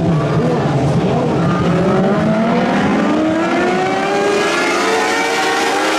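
Several Lightning sprint cars racing together on a dirt oval, their engines overlapping in a loud, steady run with several pitches climbing as the cars accelerate off the turn.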